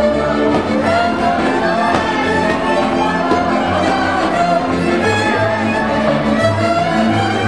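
Transylvanian village string band playing dance music: several fiddles bowing the melody together over kontra (three-string viola) chords, accordion and double bass, with the bass notes pulsing steadily underneath.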